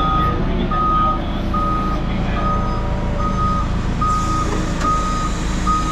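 A vehicle's reversing alarm beeping steadily, a little more than once a second, over the steady rumble of its engine running.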